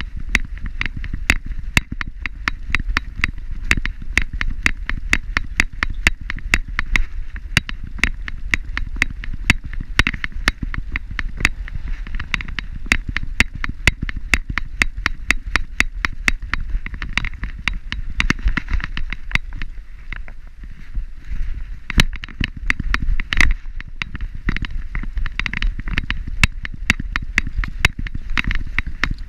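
Rapid, even clicking and rattling from the gear on a walking dog's harness, where the camera is strapped on, about four clicks a second in step with the dog's gait, over a continuous low rumble.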